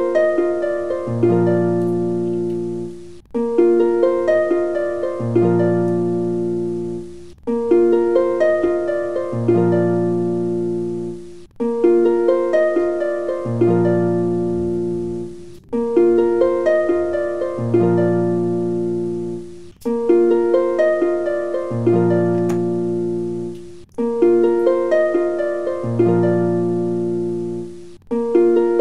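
Background music: a plucked, harp-like melody, one short phrase of about four seconds looping over and over.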